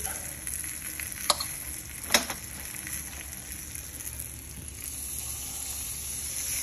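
Flour-dusted grits patties frying in a skillet of oil, giving a steady sizzle, with two sharp clicks about one and two seconds in.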